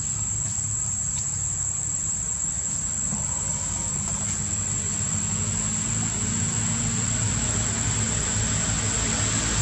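Steady high-pitched drone of insects, with a low engine hum underneath that grows louder toward the end.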